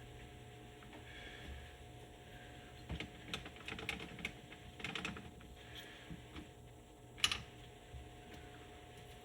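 Light clicks and clinks of clutch plates being fitted onto a TTR 125 clutch, with a run of small clicks from about three seconds in and one sharper click near the end.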